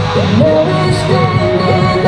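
Hip hop dance track with a steady, heavy beat and a sliding, bending melody line.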